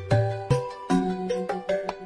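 Background music: a melody of short, bright, plucked or chimed notes over a bass line, with a regular beat of note onsets about every half second.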